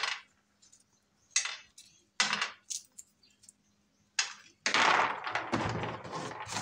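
Shelled red-skinned groundnuts rattling and clicking against a stainless steel tray as hands sort through them: a few short clatters, then a longer spell of rattling about two-thirds of the way in.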